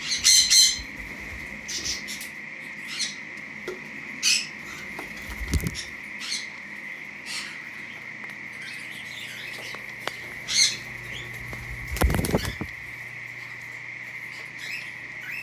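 Young pet parrots (conures, lovebirds, cockatiels) giving short, scattered high chirps every second or two, with a couple of low thumps. A faint steady high whine runs underneath.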